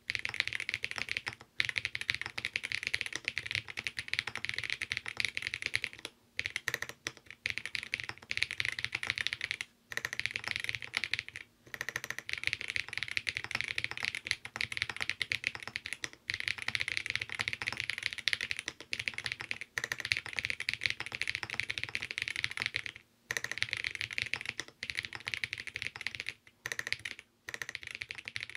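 Fast, continuous typing on a leaf-spring-mounted Alice-layout custom mechanical keyboard with an FR-4 plate, lubed vintage Cherry MX Black switch housings with Boba U4T stems, and GMK doubleshot keycaps. The keystrokes come as a dense stream, broken a few times by short pauses.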